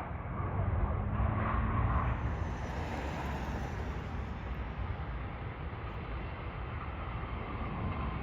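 Jet airliner's engines as it passes, a broad rumble that peaks about a second or two in and then holds steady.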